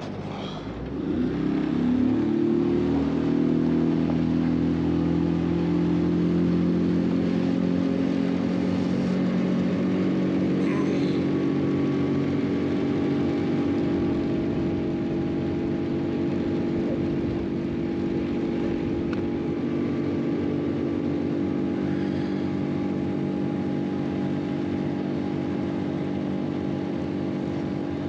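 Small motorboat's outboard motor speeding up over the first couple of seconds, then running steadily at cruising speed with the boat under way.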